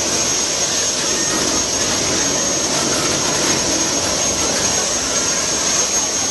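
Helicopter running steadily: a loud, even engine and rotor noise with a steady high-pitched whine over it.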